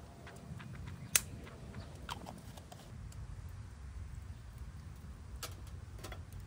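Scattered sharp clicks and ticks over a low steady rumble, with one loud, sharp click about a second in and a few more near the end.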